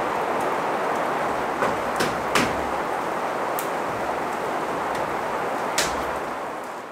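Steady rain falling outside, with a few sharp wooden knocks as a window frame is fitted into timber wall framing. The sound fades out near the end.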